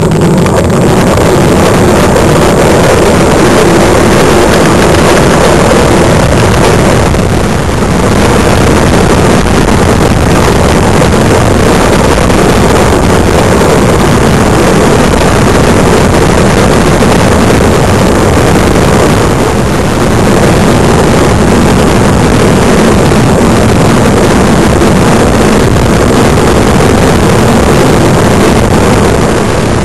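Loud, steady rushing of wind buffeting the microphone on the move, mixed with road noise, easing slightly twice.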